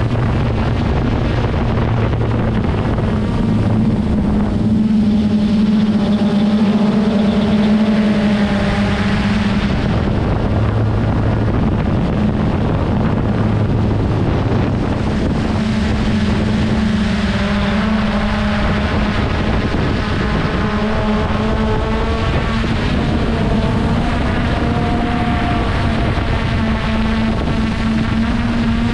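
Traxxas Aton quadcopter's motors and propellers droning steadily in flight, the higher tones wavering up and down as the throttle changes.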